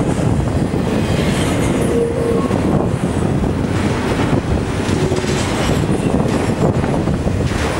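An intermodal freight train's cars rolling past at close range: a steady rumble of steel wheels on rail, with rapid clicking over the rail joints and a few brief, faint wheel squeals.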